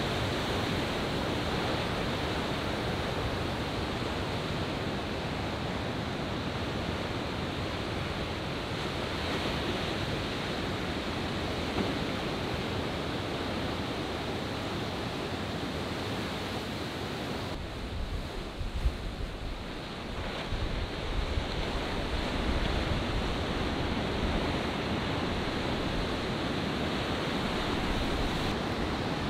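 Ocean surf: a steady wash of waves breaking and whitewater rushing, with a rougher stretch of low rumble and wind buffeting the microphone near the middle.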